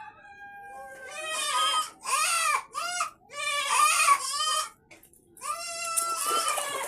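Farm animals calling: a long, level cry at the start, then a string of short, arching, bleat-like cries, a pause about five seconds in, and another cry near the end.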